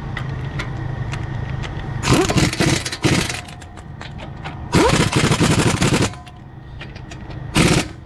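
Pneumatic impact wrench hammering brake caliper bolts home at its lowest power setting, so as not to over-torque them. It goes in three rattling bursts: two of about a second and a half each, then a short one near the end.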